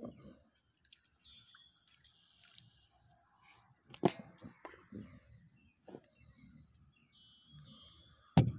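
A hooked bluegill splashing at the surface as it is reeled in, with a few sharp knocks, the loudest near the end. Under it, a steady high insect trill.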